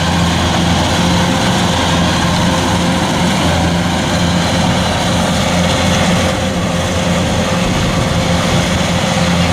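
Kubota DC105X combine harvester running steadily under load as it cuts rice, a continuous diesel engine drone with the clatter of the harvesting machinery.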